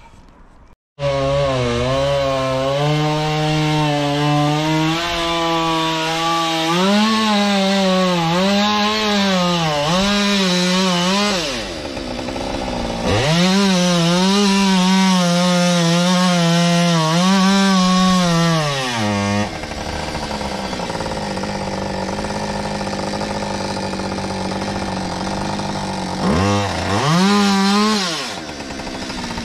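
Chainsaw starting about a second in and cutting into a tree trunk at full throttle, its pitch dipping and recovering as the chain bites into the wood. It drops to idle just before the middle, revs up for a second cut of about six seconds, idles again, and gets one short burst of throttle near the end.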